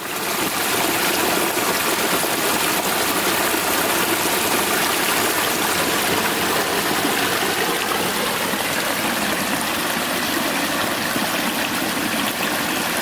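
Running stream water: a steady rushing hiss that fades in at the very start and holds evenly throughout.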